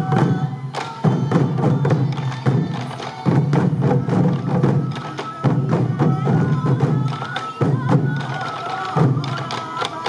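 Sansa odori troupe playing traditional festival music: many waist-slung sansa taiko drums beaten together in a repeating rhythm, with a high bamboo-flute melody over the drums.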